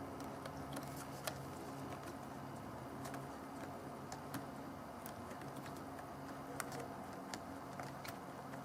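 Scattered light clicks and taps at no regular rhythm over a steady low hum.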